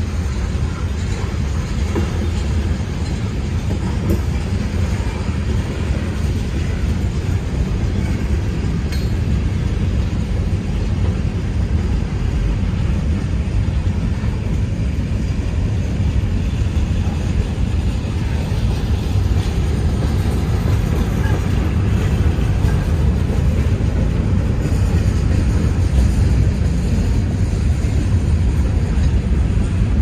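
Freight train hopper cars rolling past: a steady low rumble of steel wheels on the rails.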